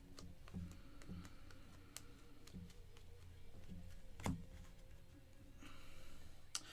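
Trading cards being handled and flipped through, giving faint scattered clicks and taps, with one sharper click about four seconds in.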